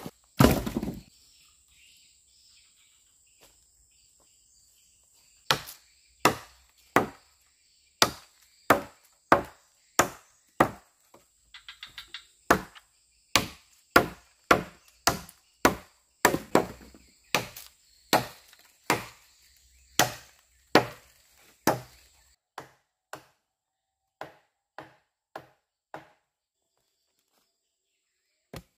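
Repeated chopping strokes of a blade into wood, about one and a half a second, with a quick run of lighter taps in the middle and fainter strokes near the end. A faint, steady, high insect drone runs under the strokes until they fade.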